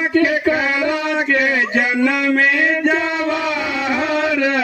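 A singer performing a Bhojpuri sohar folk song through a microphone and loudspeaker, in long held notes that slide and bend in pitch.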